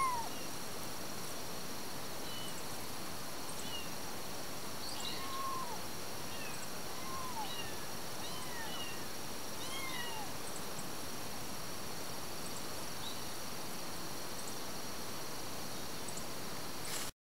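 Young kittens mewing: short high calls that rise and fall in pitch, repeated every second or two and thinning out after about ten seconds, over a steady hiss. The sound cuts off suddenly near the end.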